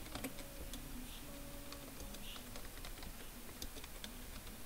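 Computer keyboard being typed on: irregular, scattered key clicks as numbers are entered.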